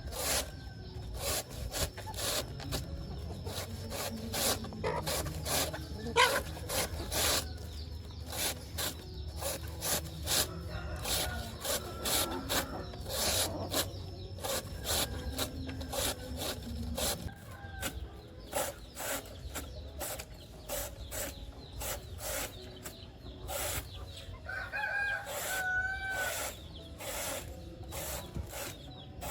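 A blade chopping through banana stems in repeated sharp strokes, about one to two a second, with chickens clucking around it and a rooster crowing about three-quarters of the way through.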